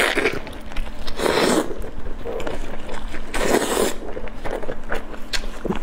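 Close-miked eating sounds: biting into and chewing saucy meat, with wet mouth noises coming in three loud bursts about two seconds apart and small clicks between them.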